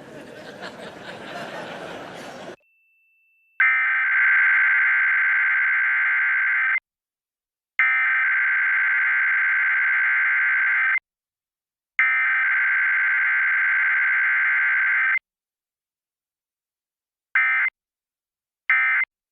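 Emergency Alert System Required Weekly Test data tones: three SAME header bursts of about three seconds each, a second apart, with a buzzy, warbling digital sound, then the short end-of-message bursts, two of them near the end.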